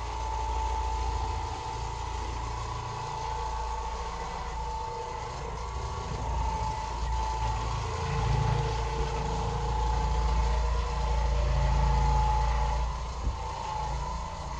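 Oreck Orbiter orbital floor machine running as it scrubs carpet with a microfiber pad: a steady motor hum with a held whining tone, swelling a little as it is worked about.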